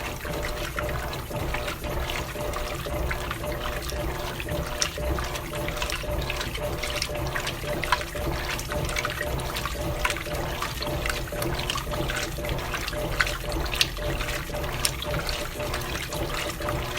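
Electrolux Silent Control 12 kg washing machine washing a load of jeans: water sloshing and splashing in the drum without pause, over a steady motor hum.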